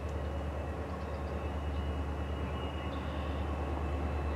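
Distant EMD GP30 diesel locomotive approaching: a low, steady engine drone that grows slowly louder.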